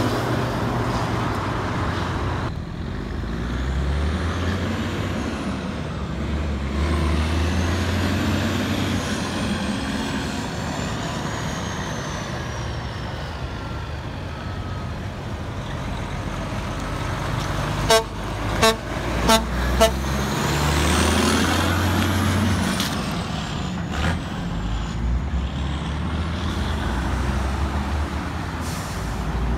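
Heavy dump trucks driving past, their diesel engines running with a low rumble and tyre noise rising and falling as each passes. About two-thirds of the way through, a horn gives four short toots.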